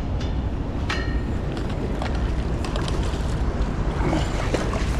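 Steady low rumble of wind and outdoor noise on the microphone, with a few light clicks and one sharper click about a second in.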